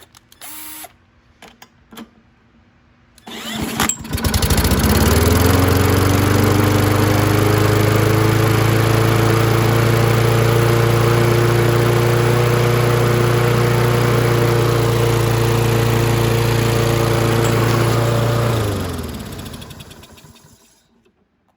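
Toro walk-behind mower's Kohler XT675 single-cylinder engine starting after a few seconds of handling clicks, speeding up to a steady run for about twelve seconds, then shut off and winding down to a stop near the end.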